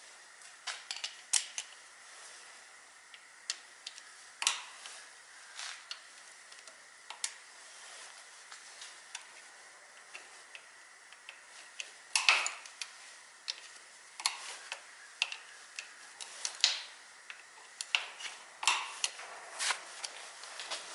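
Hand tools and small metal parts clicking and tapping irregularly during engine work, a sharp click every second or so over a faint hiss. The loudest clusters come about twelve seconds in and near the end.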